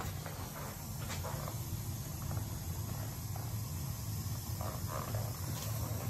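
Slant/Fin Galaxy gas-fired steam boiler running with a steady low hum, and no banging in the steam piping. A few faint clicks and scuffs sit over the hum.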